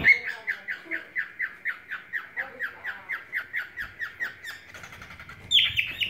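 Male white-face cockatiel singing: a fast, even string of short downward-sliding chirps, about six a second, breaking off for a moment after about four and a half seconds, then louder calls near the end. It is a male's song to a hen.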